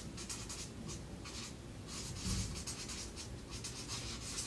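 Handwriting: a series of short, scratchy pen strokes on a writing surface, coming several times a second at an irregular pace.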